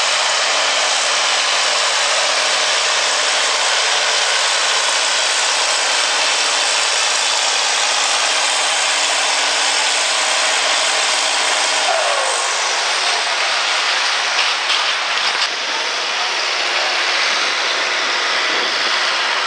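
Farm-stock diesel tractor idling while hooked to the pulling sled, with a low engine hum under a loud, steady rushing noise; the sound changes abruptly about twelve seconds in, and a few light clicks follow.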